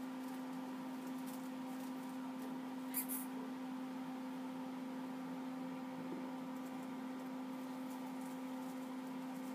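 A steady low hum with a few fainter higher overtones, unchanging throughout. There is one short light click about three seconds in.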